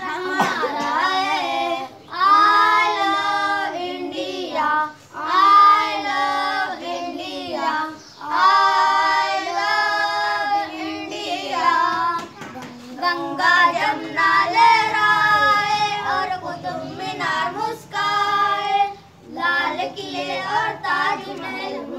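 Children singing a patriotic song together, in sung phrases of a few seconds with short breaks between lines.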